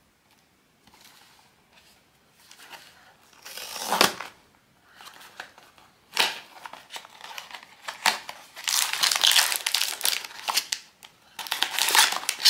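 Blind-box packaging being handled and unwrapped: bursts of crinkling and crackling wrapping, starting after about a second, with one sharp louder crackle about four seconds in and dense crinkling through the second half.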